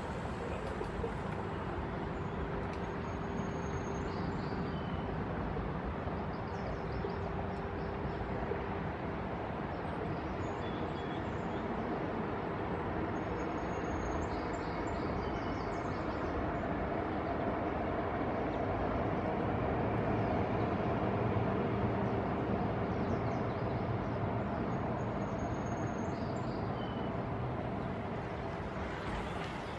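Steady city traffic rumble with a constant low hum, swelling a little around the middle, and a few faint short high chirps now and then.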